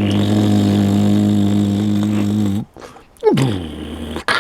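A man's voice making a growling engine noise for a toy digger: a low held rumble that slides down in pitch and stays steady for about two and a half seconds, then a second one about three seconds in that slides down again.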